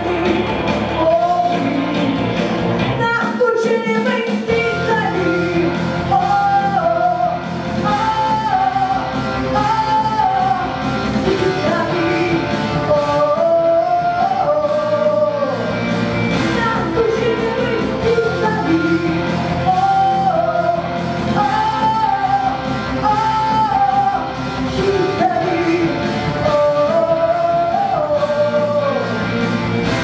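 A girl singing a rock ballad live into a handheld microphone over a recorded rock backing track, amplified through the hall's PA.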